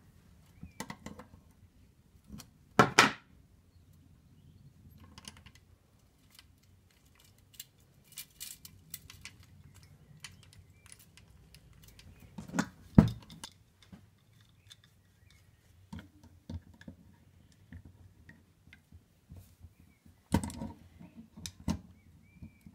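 Spanners clinking and knocking on the bearing cone and lock nut of a bicycle coaster-brake hub, with the spoked wheel handled between, as an over-tightened bearing cap is backed off so the wheel will turn. The sound comes as scattered light clicks, with a few louder knocks about 3, 13 and 20 seconds in.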